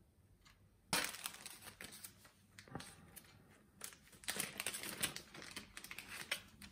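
Clear plastic bag crinkling and rustling in the hands as test leads are pulled out of it. It starts suddenly about a second in and goes on in irregular bursts, the loudest near the middle and just before the end.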